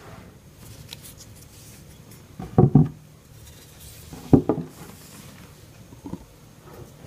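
Handling noise on a tabletop: a quick double knock about two and a half seconds in, another knock at about four and a half seconds and a fainter one near six, with light rubbing between.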